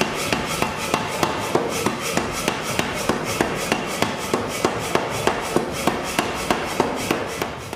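Power hammer striking a steady, rapid run of blows, about four a second.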